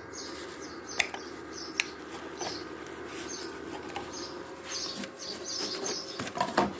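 Small birds chirping over and over, short high chirps about twice a second, above a steady low hum. Two sharp clicks come about one and two seconds in.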